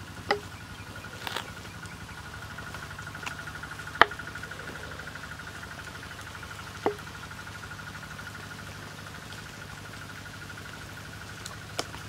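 A steady, rapidly pulsing insect trill at one pitch, with a handful of sharp slaps from wet clay being pressed and patted by hand onto a stump; the loudest slap comes about four seconds in.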